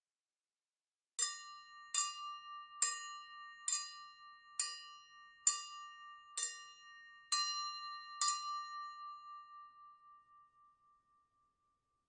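A drinking glass tapped nine times with a piece of silverware, a little under once a second, each tap leaving a ringing tone that carries into the next. After the last tap the glass rings on and fades away. This is the clinking used to call a room to a toast.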